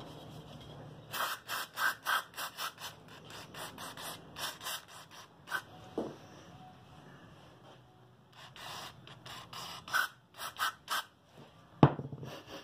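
Aerosol brake cleaner sprayed onto carburetor parts in many short hissing bursts, in two runs with a pause between. A single sharp knock near the end.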